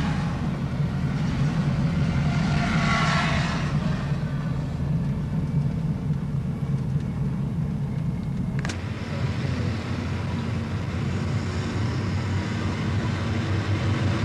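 Heavy vehicle engines running with a steady low rumble. A sharp click comes a little under 9 s in, after which the rumble changes.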